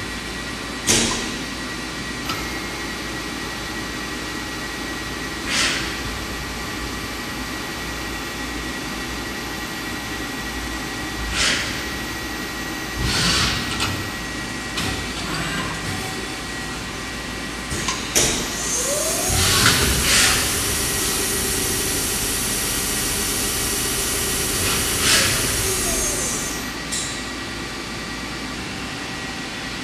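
Hwacheon CUTEX 240 SMC CNC lathe running: a steady machine hum with a thin whine, broken every few seconds by short clunks and hisses as the turret indexes and the sub spindle moves. About two-thirds of the way through, a loud hiss comes on with a rising whine, runs for about eight seconds, and stops with a falling whine, like a spindle spinning up and back down.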